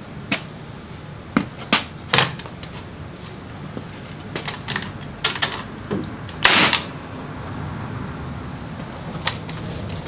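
Woodworking clamps being handled and set on wood during a glue-up: irregular clicks and knocks, the loudest a longer rattle about six and a half seconds in.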